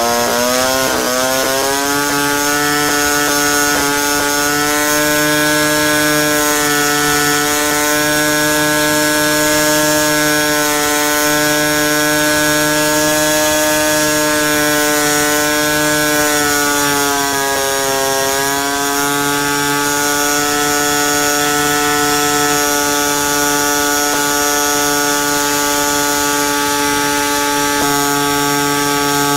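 RCGF 15cc Stinger single-cylinder two-stroke petrol model-aircraft engine running with its propeller, revving up to full throttle at the start and then holding a steady high-pitched run. About 17 seconds in the pitch dips briefly and settles a little lower as the high-speed mixture is richened to bring the revs down from peak, so the engine won't run too lean and overheat in the air.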